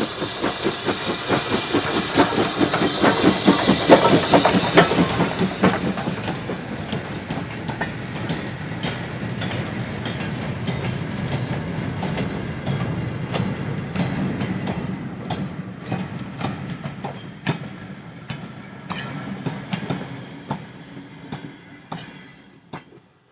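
British Railways Standard 9F 2-10-0 steam locomotive 92134 passing with a goods train: rapid, regular exhaust beats, loudest in the first few seconds, then the wagons rolling by with wheels clicking over the rail joints, fading away near the end.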